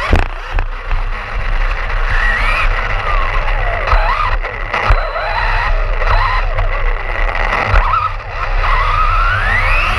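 Brushless motor of an Arrma Fazon BLX 6S RC car whining up and down in pitch as the throttle is worked, over a steady rumble of the tires on the ground. A few sharp knocks from bumps along the way.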